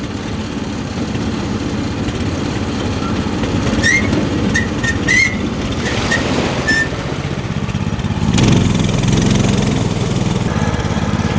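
The small engine of a homemade go-kart-based boat cart runs steadily as it is driven off toward the water. A few short high chirps come in the middle, and the engine and surrounding noise get louder about eight seconds in.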